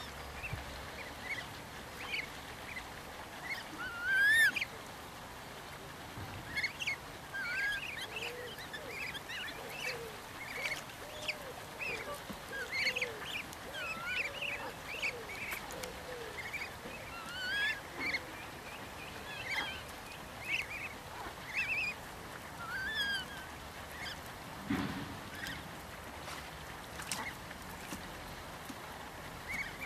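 Black swan cygnets peeping over and over in short, high, rising chirps, one loud chirp about four seconds in. Between them come lower, softer calls from the adult black swans, mostly in the middle stretch.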